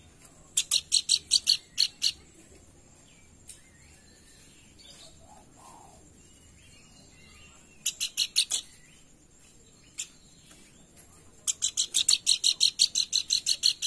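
Pelanduk bukit, a babbler, calling in runs of rapid, sharp, high-pitched notes at several a second. There is a short run near the start, another around the middle, and a longer, faster run near the end.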